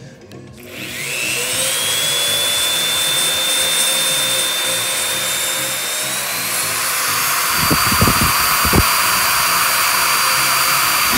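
Handheld power drill spinning up and running steadily as its bit bores through a truck's sheet-metal fender, a high whine that steps up in pitch about six and a half seconds in. A few dull knocks come just past the eight-second mark.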